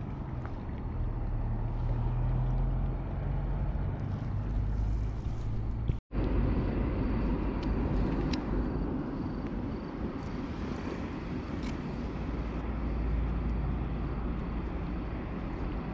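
Steady outdoor rumble and hiss, heaviest in the low end, broken by a momentary cut to silence about six seconds in.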